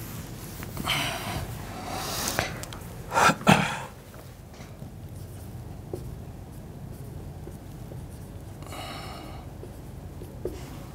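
Whiteboard duster rubbed across the board in several strokes, the loudest about three and a half seconds in. After a quieter stretch comes a marker squeaking on the whiteboard as it writes, with a small tap near the end.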